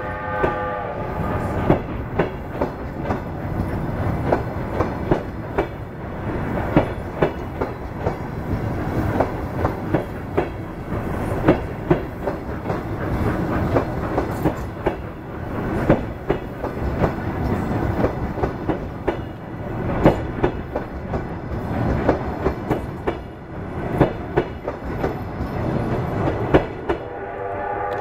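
Passenger train coaches rolling past at speed, their wheels clattering over rail joints in a steady rumble with a quick, irregular run of knocks. A multi-tone train horn fades out just after the start and sounds again near the end.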